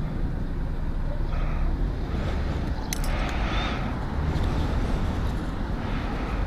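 Steady low rumble of road traffic, with a few sharp clicks and a brief rustle about three seconds in.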